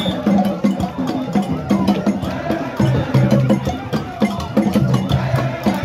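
A marching crowd chanting and singing together in unison over steady, rhythmic drumming and sharp wooden clicks.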